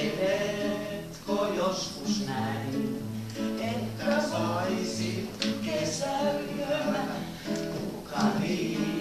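A man singing a Finnish song to his own acoustic guitar, strummed with a bass note on each beat, while a small group sings along.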